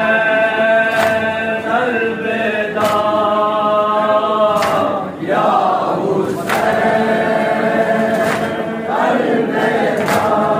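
A group of men chanting a noha (Shia mourning lament) in unison, with sharp, unison chest-beating strikes of matam about every two seconds keeping the beat.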